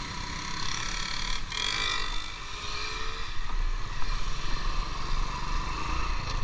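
Motorbike engine running steadily while riding along a road, with a constant rush of wind noise.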